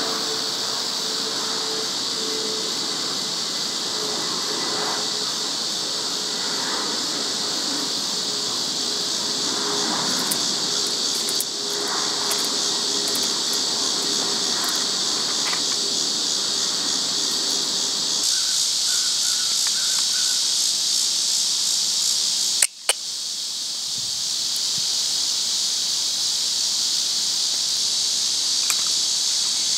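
Steady, high-pitched insect chorus. Under it a faint steady hum stops about two-thirds of the way through, and the sound drops out for an instant a little later.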